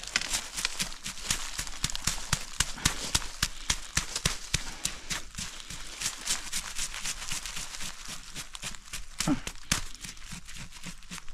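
Footsteps crunching and crackling through dry leaves and twigs on a forest floor, several steps and snaps a second at an uneven pace.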